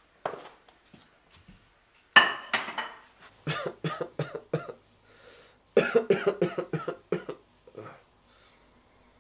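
A person coughing in two fits of several quick coughs each, one about two seconds in and the other about six seconds in; a sick person's coughing bout.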